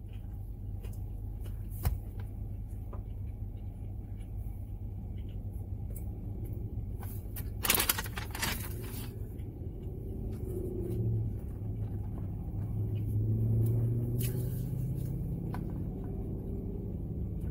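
Steady low rumble of a car, heard inside the cabin, under the small clicks and smacks of chewing a chicken sandwich. There is a short, sharp crackle about eight seconds in, and a low hum swells briefly a little past the middle.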